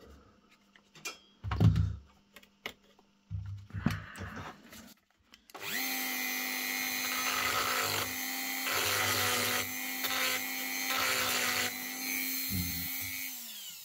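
A few light handling knocks, then about five and a half seconds in a rotary tool with a small abrasive grinding stone starts with a steady whine. It grinds in several surges against the metal lamp fitting, scuffing off oxidisation to bare metal for soldering an earth wire, then spins down with a falling pitch near the end.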